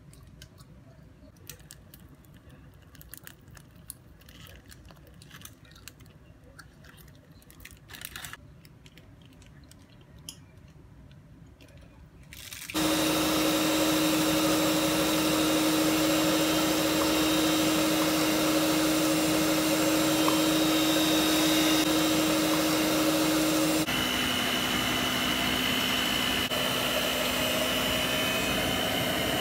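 Light, scattered clicks and taps, then a loud, steady motor noise with a low hum and a high whine that starts suddenly about halfway through and steps down slightly in pitch near the end.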